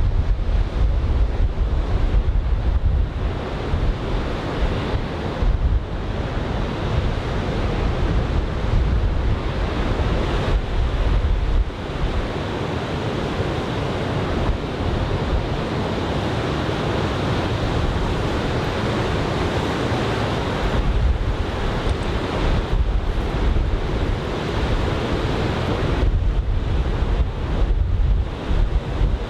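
Big typhoon surf breaking and washing ashore in a steady heavy wash of noise, with strong gusty wind buffeting the microphone in a low rumble.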